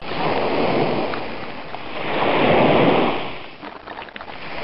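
Ocean surf: a rush of breaking waves that swells to a peak about two and a half seconds in, ebbs, then starts to build again near the end.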